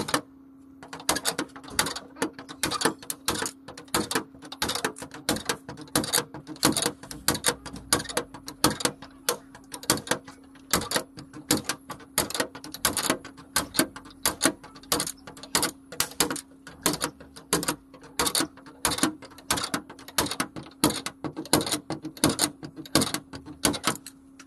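Stud-welder dent puller pulsing against a truck door's dented sheet-metal panel: an irregular run of sharp clicks, about two or three a second, over a steady hum.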